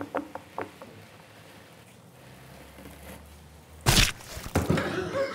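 Several small sharp clicks as a wad of hair is pulled out of a bathtub drain. About four seconds in, a sudden loud burst of noise, followed by a voice near the end.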